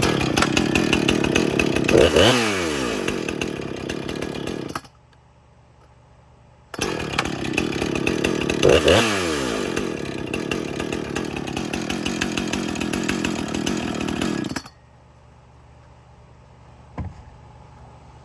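Husqvarna 455 Rancher chainsaw's 55.5 cc two-stroke engine running in two stretches, with a pause of about two seconds between them. In each stretch the engine revs up about two seconds in and the revs then fall back. A short knock comes near the end.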